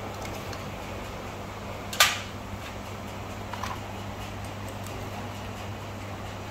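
A single sharp knock from handling parts of a dismantled brush-cutter engine, about two seconds in. A couple of faint clicks follow, over a steady low hum.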